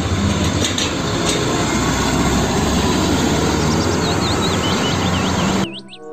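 Hino diesel tanker truck driving past on a street: steady engine rumble and road noise. It cuts off suddenly near the end and gives way to music.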